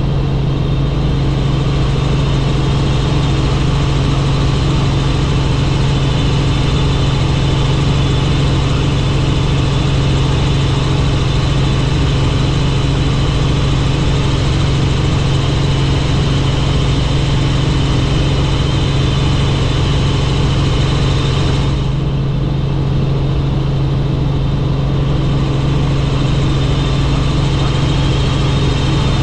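Helicopter running steadily in flight: a loud, even drone of turbine and rotor with a strong low hum. The higher hiss thins for a few seconds about three quarters of the way through.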